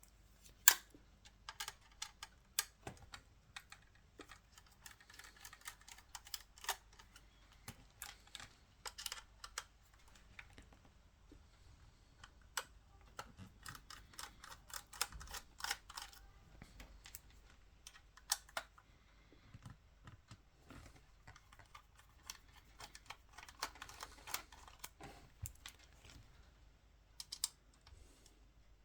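Irregular small clicks and taps of a screwdriver working screws out of a Canon EOS 5D camera body, with small metal and plastic parts being handled and set down.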